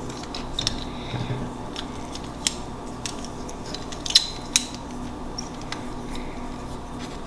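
Irregular sharp clicks from a small plastic fidget toy being worked in the hand, a dozen or so, over a steady faint hum.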